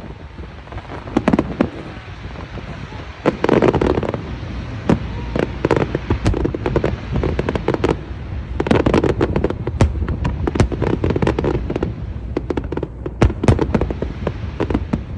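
Aerial fireworks display: a steady low rumble of booms with many sharp bangs and crackles. Dense volleys of rapid bangs come about three seconds in and again from about nine to twelve seconds in.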